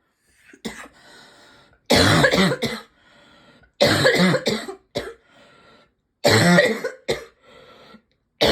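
A person's deep, barking cough, a cough that is not getting better: one short cough, then three hard bouts of several coughs each about two seconds apart, with a quieter breath drawn in between bouts. Another bout begins right at the end.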